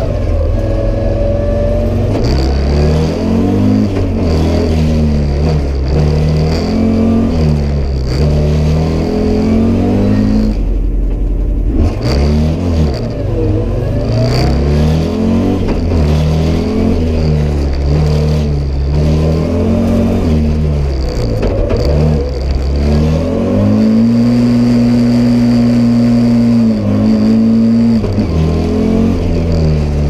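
Audi Sport Quattro S1's turbocharged five-cylinder engine heard from inside the cabin, driven hard: its pitch repeatedly climbs under acceleration and drops through gear changes and braking. About two-thirds of the way through it holds one steady high pitch for several seconds before falling away again.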